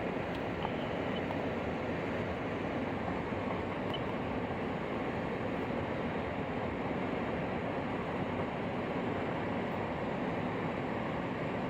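Toyota truck's engine idling steadily while warming up, with the heater blowing. A steady even noise with no squeal, the new drive belt running quietly.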